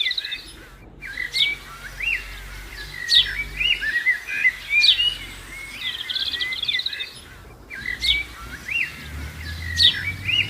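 Birdsong: sharp whistled notes, chirps and fast trills. The same sequence of calls repeats about every seven seconds, like a looped recording.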